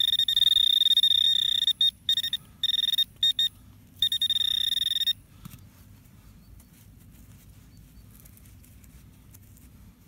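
Handheld metal-detector pinpointer sounding a high continuous alarm tone that breaks off and comes back several times as its tip is moved through the loose soil, signalling a small metal target. It stops about five seconds in.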